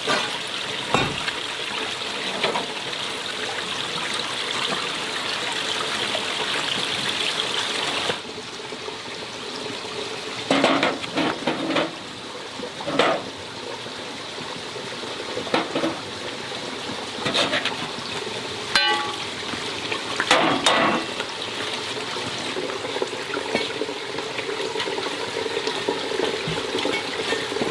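Water running steadily. About eight seconds in the rush drops abruptly, and scattered knocks and clatter follow.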